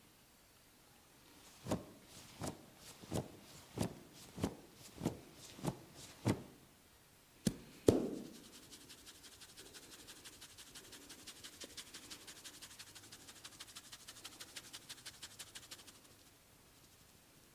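Tok sen massage: a wooden mallet knocks on a wooden wedge held against the body, eight even, crisp knocks at a steady pace, then two harder knocks. These give way to a long, rapid run of light, high ticks.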